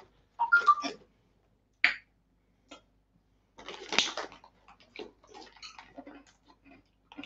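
Plastic M&M's bag being torn open and crinkled by hand: a sharp snap about two seconds in, a louder crackle around four seconds in, then scattered small crinkles.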